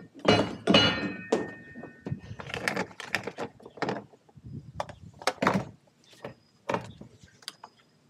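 Handling clatter of a fuel nozzle and hose at a tractor's fuel filler: a run of sharp knocks and metal clanks, the loudest about half a second in ringing briefly, fewer and fainter toward the end.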